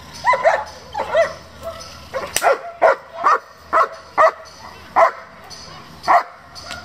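German Shepherd barking repeatedly and excitedly as it lunges on the leash at a decoy in protection training. The first barks come with rising, whining yelps, then come as single sharp barks about twice a second. A sharp crack sounds about two and a half seconds in.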